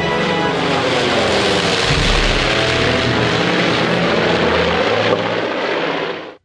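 Grumman F7F Tigercat's twin Pratt & Whitney R-2800 radial engines and propellers running loud in a low flyby. The sound cuts off suddenly near the end.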